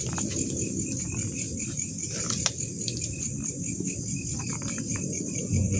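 Night insects chirring steadily in one high band, over a low rustle and scuffing from people moving through vegetation, with a few light clicks.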